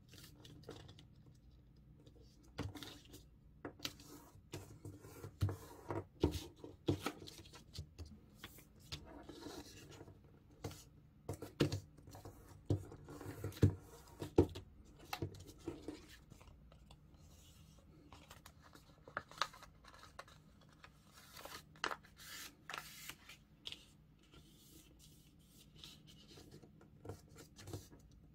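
A sheet of A4 printer paper being folded and creased by hand, with irregular crackles and rustles as the folds are pressed flat, most frequent in the first half.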